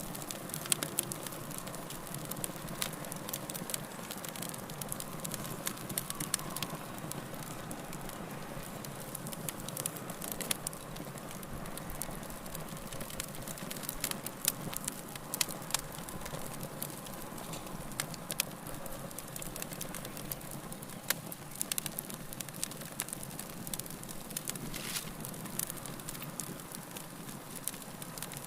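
Fire burning in a fireplace, a steady soft hiss with frequent sharp crackles and pops at irregular intervals.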